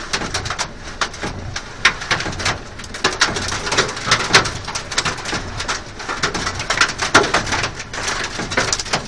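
Hailstones drumming on a car's windscreen and roof, a dense, irregular clatter of sharp hits, heard from inside the car.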